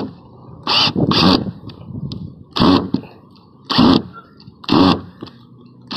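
Hart 20-volt cordless 1/2-inch drill driver driving an exterior wood screw into a wooden fence board in short bursts, the motor spinning up and stopping about six times, roughly once a second.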